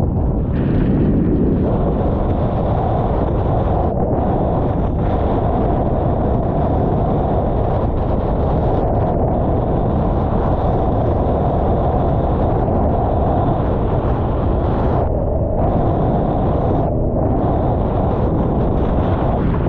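Steady wind noise buffeting the microphone, with water rushing along the hulls of a Formula 18 catamaran under sail.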